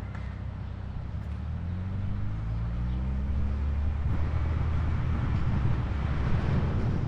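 A motor vehicle's engine hum rising in pitch for a couple of seconds, then giving way about four seconds in to a louder steady rushing noise.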